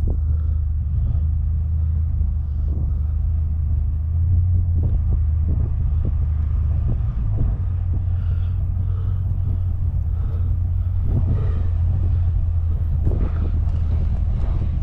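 A steady low rumble like an engine running, with faint irregular knocks over it.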